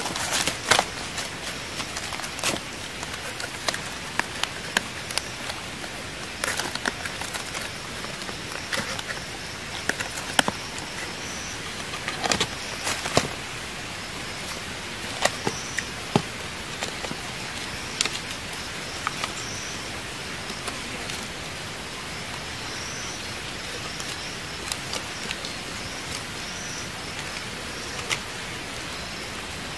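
Scattered sharp clicks and taps of small bamboo and wooden pieces being handled and fitted together by hand, over a steady hiss of forest ambience. Faint short high chirps recur now and then.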